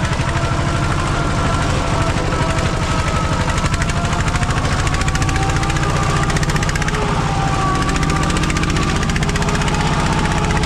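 A small engine running steadily with a rapid, even pulse, and faint higher tones that drift slowly in pitch.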